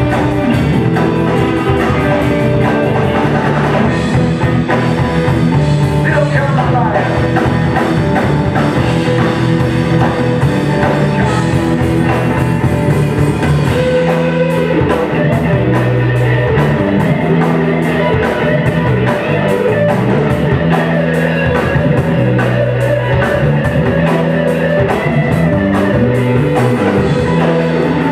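Rock band playing live: drum kit, bass and electric guitar. The bass line steps between held notes under a steady drum beat.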